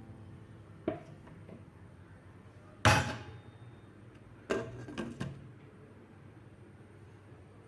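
A few scattered knocks and clatters over a quiet background: a light knock about a second in, a loud sharp one about three seconds in, and three quicker knocks a couple of seconds later.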